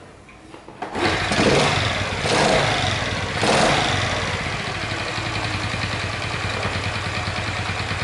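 Honda Chaly's small single-cylinder four-stroke engine being kick-started, catching about a second in, revving up briefly a few times, then settling into a steady idle. The engine has a faint clacking that the owner suspects comes from the cam chain or cylinder head, partly masked by the intake noise of an aftermarket pod air filter.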